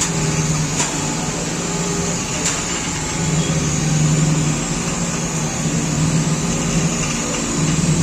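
A 220 mm band saw machine running steadily. Its low motor hum swells and eases every second or so under a constant high whine, with a couple of faint ticks early on.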